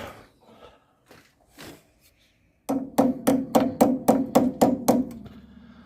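A fast run of about a dozen ringing taps on metal, roughly five a second, starting about two and a half seconds in: a new brake pad being tapped at in a Land Rover Discovery's brake caliper because it will not slide in by hand.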